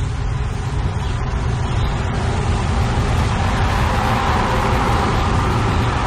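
Dense, rumbling wash of a field recording processed through a Bastl Thyme delay with feedback, with a steady low rumble underneath; a brighter mid-range layer swells up from about halfway through as the controls are turned.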